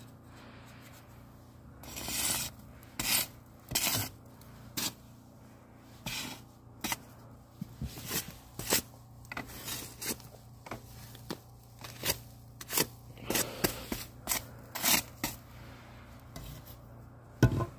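A wooden stick raking and scraping loose-fill attic insulation aside, in many short, irregular scraping strokes.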